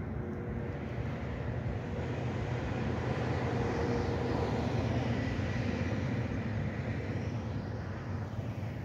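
Aircraft passing overhead: a steady rushing rumble that swells to its loudest about halfway through and then eases off, with a faint steady whine on top.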